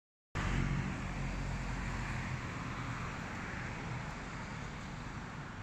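Steady outdoor urban background noise with a low hum, like distant traffic, easing off slightly.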